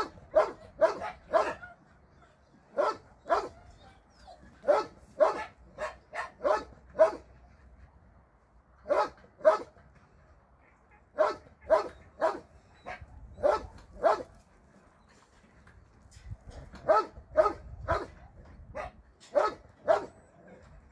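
A dog barking in short, sharp clusters of two to five barks, with pauses of a second or two between clusters.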